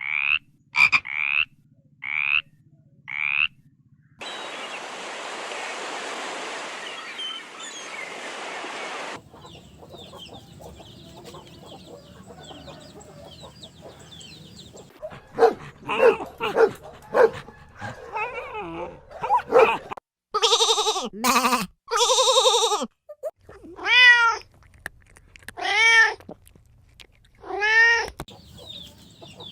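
A string of separate animal calls, cat meows among them. First come four short, high mews, then several seconds of steady hiss. After that comes a run of assorted calls, and near the end three long meows that rise and fall in pitch.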